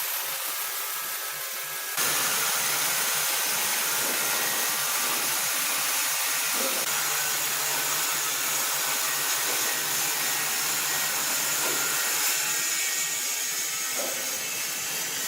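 Woodworking machinery running and cutting wood, a dense steady hiss of blade on timber. The sound changes abruptly and gets louder about two seconds in.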